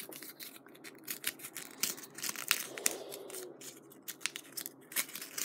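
Plastic toy packaging being crinkled and torn open by hand, an irregular crackling of many small sharp crinkles.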